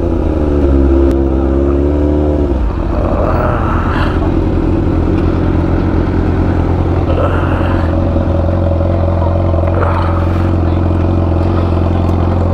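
Sport motorcycle engine winding down with a falling pitch as the bike slows, then idling steadily from about two and a half seconds in.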